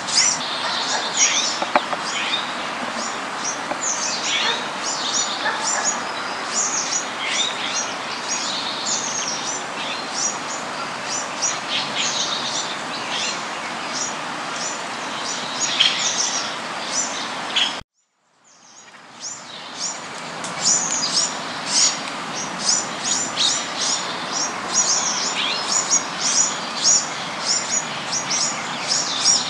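A flock of jungle babblers chattering: rapid, high, squeaky calls, several a second, over a steady background hiss. The sound cuts out suddenly about two-thirds of the way through and fades back in.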